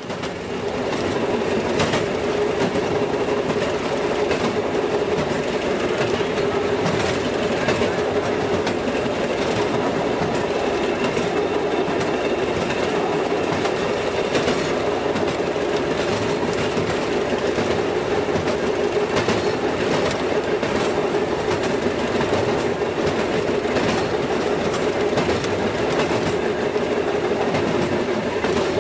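Railroad motorcar (speeder) running along the track, heard from inside its cab: a steady engine drone with wheels clattering over the rails.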